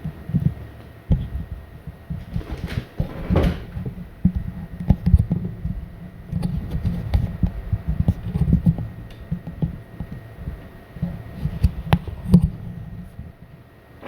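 Irregular low thumps and rubbing of a microphone being handled and moved around a laptop, over a faint steady high-pitched whine from the Lenovo Legion 5P's cooling fans.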